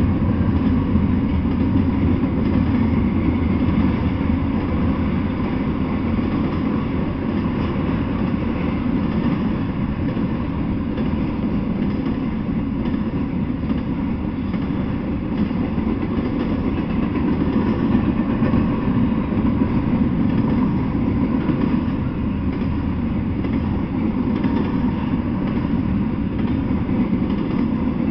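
Double-stack intermodal freight train's container-laden well cars rolling past, a steady noise of steel wheels running on the rails.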